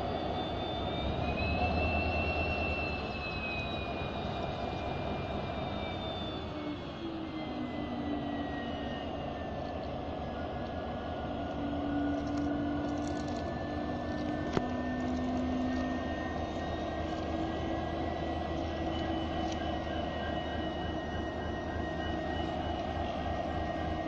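EMD WDP-4D diesel locomotive's two-stroke V16 engine running just after start-up: a steady rumble under a high whine that rises over the first couple of seconds, then slowly falls and levels off. A lower tone drops about seven seconds in, and there is one sharp click about midway.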